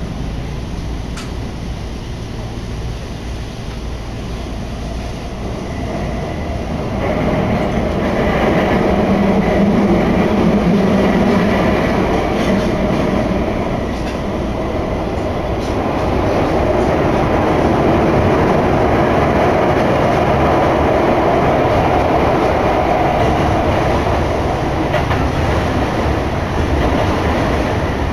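Toei Shinjuku Line subway train running between stations, heard from inside the car: steady wheel and running noise with a low hum, growing louder about seven seconds in.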